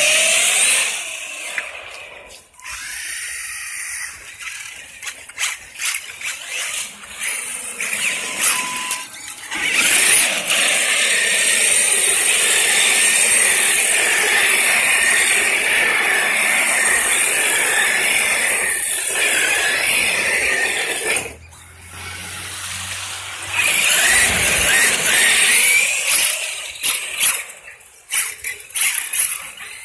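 Brushless electric RC car at speed, its motor and drivetrain giving a high-pitched whine that rises and falls as it accelerates, slows and passes, loudest and steadiest through the middle of the stretch.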